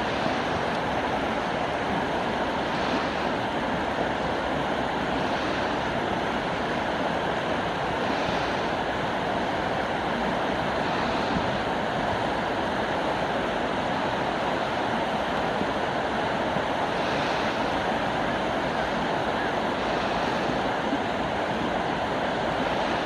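Steady rush of choppy water breaking around rocks, with soft swells every few seconds.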